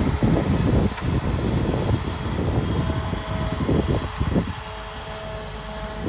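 Diesel engine of a self-loading log truck running under load to power its hydraulic knuckleboom loader as it swings and lowers a log, with a thin steady whine that comes and goes.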